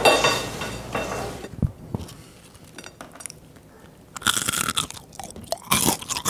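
Crisp roasted fries sliding and clattering out of a stainless steel bowl onto a plate, then, about four seconds in, a fry being bitten and chewed with loud crunching: the sign of a glassy, crisp exterior.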